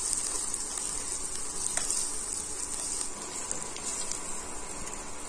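Spice masala of onion, garlic, ginger and chilli paste sizzling in oil in a kadai as it is fried down, a steady sizzle with a metal spatula stirring and scraping through it a few times.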